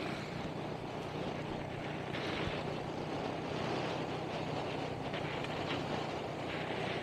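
Motorcycle engine running steadily while riding along in traffic, with road and wind noise, as heard from the rider's own bike.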